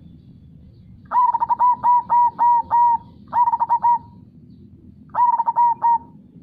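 Zebra dove (perkutut) cooing: three phrases of rapid repeated 'kung' notes, the first, about a second in, the longest, followed by two shorter phrases.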